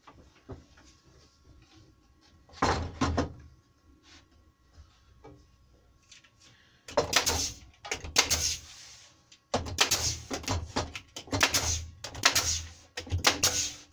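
Pneumatic brad nailer firing a string of shots, in quick runs from about seven seconds in, driving pins through an MDF template into a wooden panel. A single knock about three seconds in.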